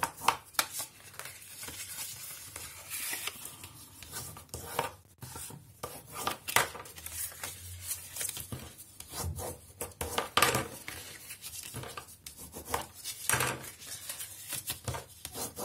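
Scored cardstock being folded and creased flat by hand and with a bone folder: irregular rubbing, scraping and paper rustling against a cutting mat.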